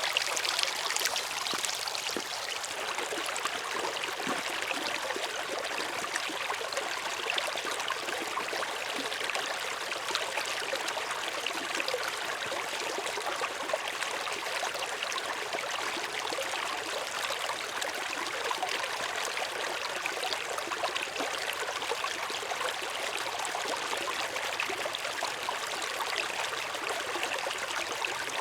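River water flowing: a steady, even rush of water that does not change.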